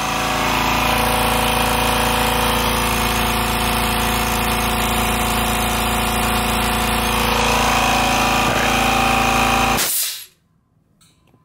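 Kobalt Quiet Tech air compressor running steadily as it fills its tank with a low motor hum, then shutting off abruptly about ten seconds in.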